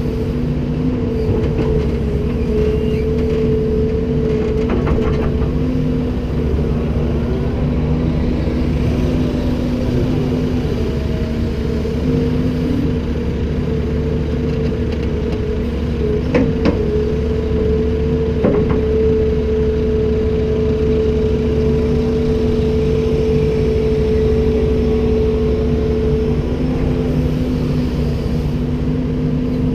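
Komatsu PC290-10 excavator's diesel engine running at a steady speed with a constant hum. There are two short knocks, about 16 and 18 seconds in.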